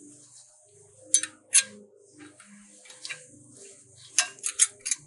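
Sharp metallic clicks and taps of steel brake-pad hardware being fitted into a brake caliper by hand: a pair of clicks about a second in, another near three seconds, and a quick run of four near the end.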